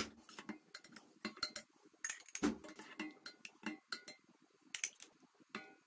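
Metal ladle scooping thick fig jam in a stainless steel pot, giving scattered light clinks and scrapes against the pot.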